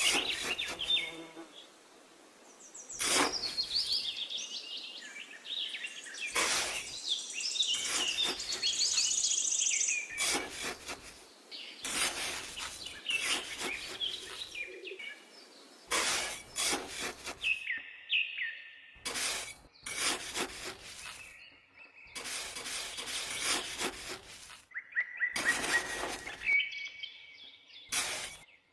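Birds chirping and twittering, broken by repeated short, harsh noises every second or two.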